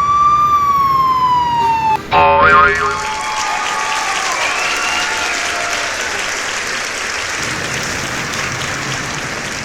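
A siren wails, holding high and then slowly sinking in pitch, and cuts off suddenly about two seconds in. A short jumble of stepped tones follows, then a steady noisy mix with music under it.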